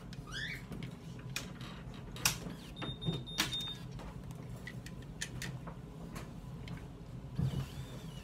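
Conair Curl Secret automatic hair curler at work on a section of hair: sharp plastic clicks from the handle and chamber, the loudest a little over two seconds in, and a short run of high timer beeps about three seconds in.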